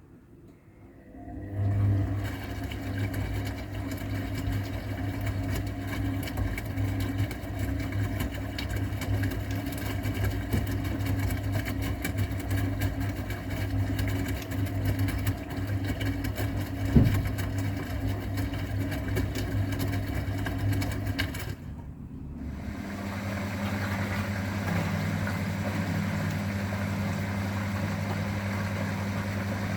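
AEG Öko-Lavamat 693 washing machine's drum motor starting up and running steadily with a low hum. It stops about 22 s in and starts again a second later with a slightly different pitch.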